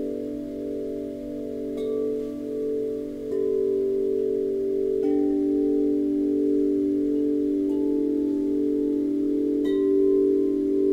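Grace Note wind chimes struck one at a time with mallets: about five strikes, each a soft click followed by a long ringing tone that layers over the low notes still sounding, which pulse with a slow wobble as they beat together.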